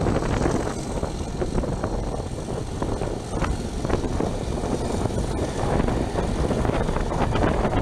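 Class 37 diesel locomotive's English Electric engine droning steadily as it hauls the train, heard from a coach window over rushing air and wheel noise on the track, with scattered short clicks.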